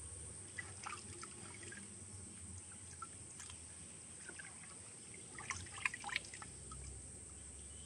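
Small splashes and drips of water as the small fish are handled in the water: a few light drips about a second in, then a quick cluster of splashes about five and a half seconds in.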